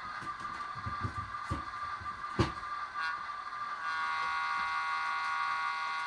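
HO scale model train running on the layout: a steady electric whine with scattered clicks and knocks of wheels on the track, one sharp click about two seconds in. Near the end a fuller buzzing tone of several pitches joins in.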